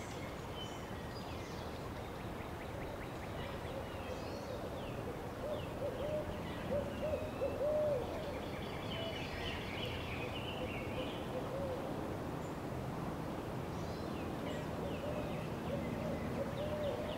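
Low hooting bird calls in quick repeated runs, one about a third of the way in and another near the end, with small birds chirping higher over a steady outdoor hiss.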